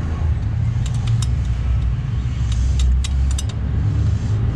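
Light metallic clicks and taps from a hand tool on a bicycle's seat-post clamp, as the slipped seat post is raised and tightened. They come in two short clusters, about a second in and about three seconds in, over a steady low rumble.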